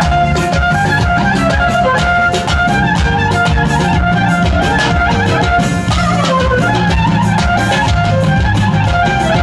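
Live Armenian folk music: a clarinet melody over the steady beat of a dhol, a large double-headed drum.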